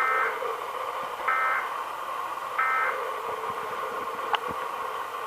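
Emergency Alert System end-of-message (EOM) code: three short bursts of shrill, warbling data tones about 1.3 seconds apart, marking the end of the test alert. A steady hiss runs underneath, and a single sharp click comes about four seconds in.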